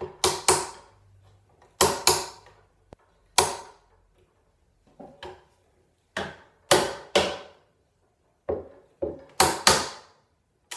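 A mallet knocking a freshly glued black walnut panel tight along its clamped tongue-and-groove joint: about fifteen sharp wooden knocks, mostly in twos and threes, each ringing briefly.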